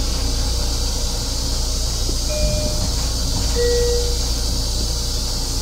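Steady hiss over a low rumble from a Metro-North M7 electric railcar running on the track, as heard inside its restroom. There are two brief faint squealing tones, about two and three and a half seconds in.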